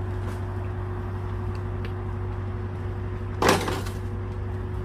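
Engine running steadily with a low hum, and one loud knock about three and a half seconds in.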